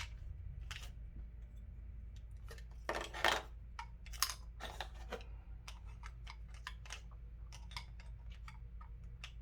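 Small metal lockpicking tools (plug followers) being handled: irregular light clicks, taps and scrapes, with a louder clatter about three seconds in and again about four seconds in, over a low steady hum.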